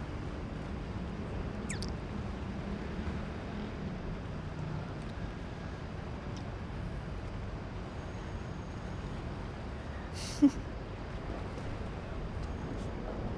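Steady low rumble of city traffic, with a single sharp click about ten seconds in.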